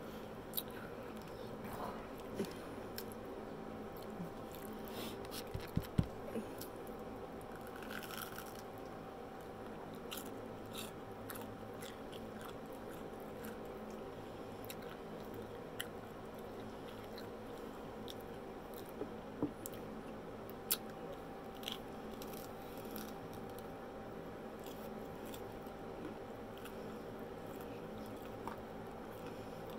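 Close-miked eating: biting and chewing crisp fried onion rings, with scattered crunches and small wet mouth clicks and smacks.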